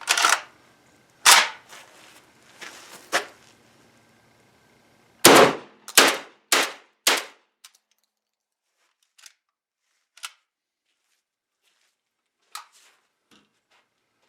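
JTS AK-style semi-automatic 12-gauge shotgun firing target loads: three spaced shots, then a rapid string of four about half a second apart, followed by a few faint clicks.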